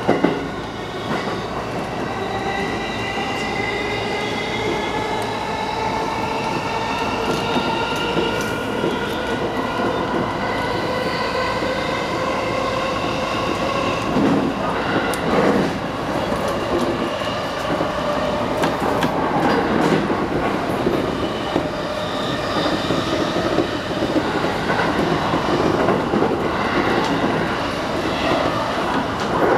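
JR East E233-8000 series electric train's inverter and traction motors whining, a set of tones rising in pitch together as the train accelerates for about the first twelve seconds. Then comes steady wheel-on-rail running noise with rail-joint clatter and a few knocks around the middle, heard from inside the front car.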